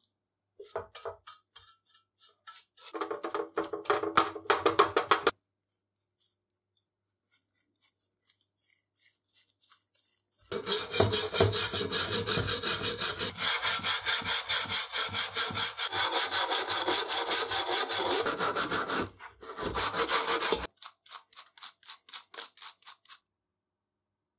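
A metal scraper scraping softened paint off a cast aluminium lamp housing in fast repeated strokes. A shorter, quieter run of strokes comes first, then a pause of about five seconds, then a long, loud run of scraping that thins out near the end.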